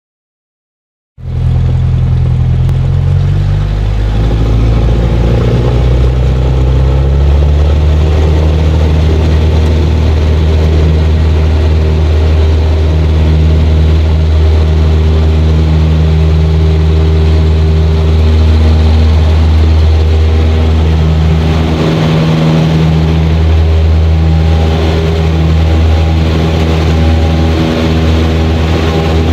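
Cessna 172's piston engine and propeller at high power for takeoff, heard inside the cabin. The sound cuts in about a second in, shifts in pitch over the next few seconds as power comes up, then holds a loud, steady drone.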